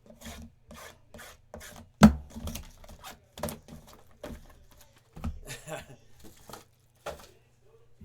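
Card boxes and packs being handled on a table: a run of short rubbing and scraping sounds, with a sharp knock about two seconds in.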